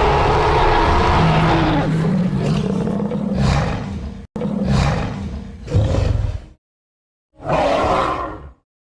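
Loud roaring, a growling, low-pitched sound cut into pieces, with sudden drops to dead silence: briefly about four seconds in, for most of a second after six and a half seconds, and again near the end.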